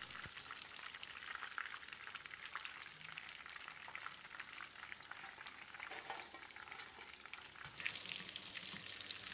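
Chicken pieces deep-frying in hot oil: a steady fine crackling sizzle, with a wire spider strainer stirring through the oil and lifting the pieces out once they are fried deep red. The sizzle grows a little louder near the end.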